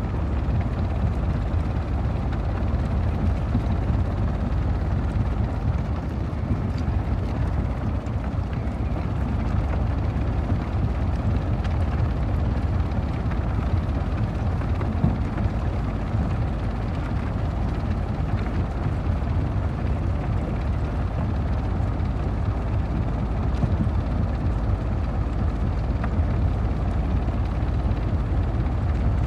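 Stone crusher machine running, a steady low rumble of rock being ground.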